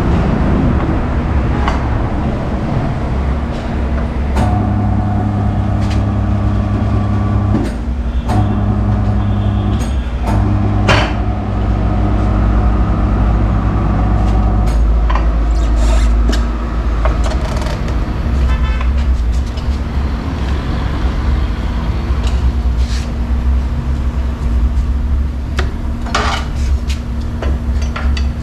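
Steady machine hum, like an engine or motor running, that drops out briefly a few times, with scattered sharp metallic clicks and knocks of tyre-fitting work on it.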